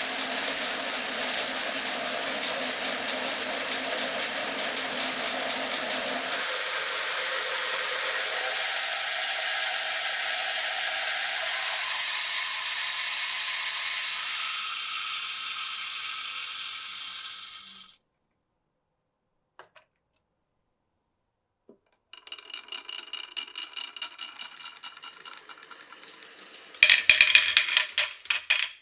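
Marbles rolling along a wooden marble run in a steady rolling rumble that changes in tone about six seconds in and fades out after about eighteen seconds. After a short pause with a couple of faint clicks, marbles rattle along the track again, ending in a louder clatter near the end.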